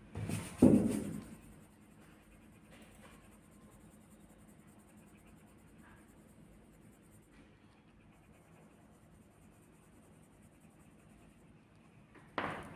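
Pencil scratching faintly on paper as small circles are shaded in, with a louder knock of handling about a second in and a click near the end as the pencil is put down.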